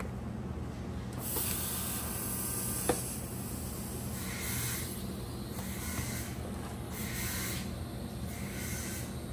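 TIG welding arc from a Syncrowave 250DX on thin copper sheet, switched on and off with the foot pedal to make autogenous spot welds: a hiss that comes on about a second in and then cuts in and out several times. A sharp click about three seconds in, over a steady low hum.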